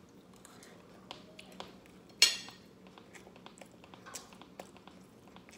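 Eating sounds: soft chewing and small clicks of a fork against a plate. About two seconds in comes one short, sharp, loud squeak, like the fork scraping the plate.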